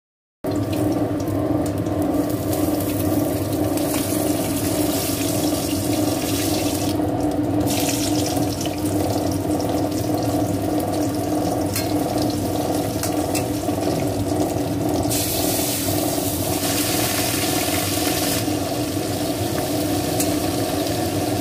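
Kitchen chimney (range hood) extractor fan running loud with a steady hum, over fish sizzling in oil in a steel wok; the sizzling hiss swells and eases from time to time.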